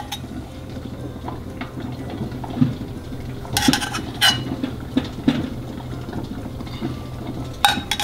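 Metal teaspoon clinking and scraping against the inside of a small aluminium saucepan of liquid glaze while spooning out orange segments: a few sharp clinks, most of them in the second half, over a faint low hum.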